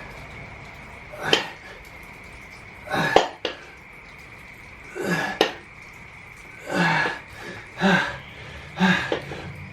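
A weightlifter breathing out hard with a short grunt on each rep, about six times, a second or two apart. A sharp metallic clink of the weights comes a little after three seconds in.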